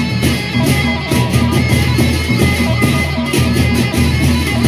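Sasak gendang beleq gamelan ensemble playing: large barrel drums and small gongs keep a repeating beat under steady high melodic tones, with frequent crashes of hand cymbals.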